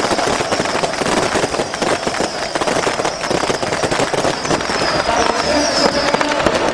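Supporters' pyrotechnics in a stadium: firecrackers and fireworks crackling densely and without a break over the steady hiss of burning flares. From about five seconds in, a series of short falling whistles joins in.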